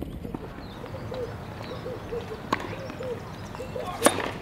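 A tennis racket strikes the ball on a serve about four seconds in, a single sharp crack, after one quieter sharp knock midway. Soft, short bird calls repeat steadily in the background.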